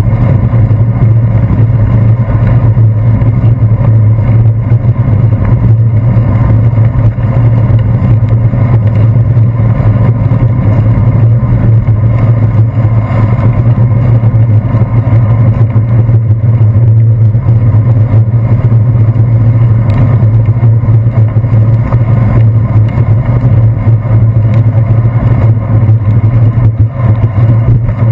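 Steady low rumble of a bicycle riding on wet pavement, picked up through a handlebar-mounted action camera, with road traffic alongside.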